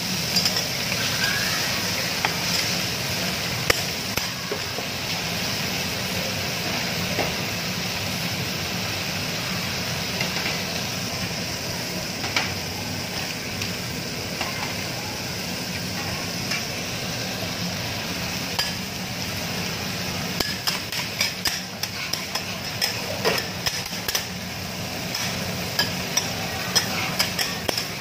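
Food sizzling steadily on a hot flat steel teppanyaki griddle. In the last several seconds a quick run of sharp metal taps and clatters comes over the sizzle.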